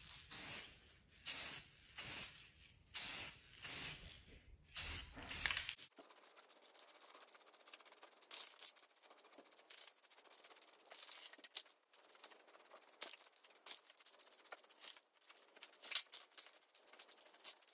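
Aerosol can of Krylon Fusion spray paint hissing in short bursts, light skim passes of a base coat, about one a second at first and sparser later on.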